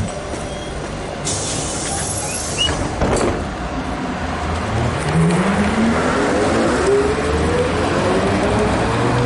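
ZiU-682G trolleybus pulling away from a stop: from about four and a half seconds in, its traction drive's whine rises steadily in pitch as it speeds up. Earlier come a short hiss of air and a clunk.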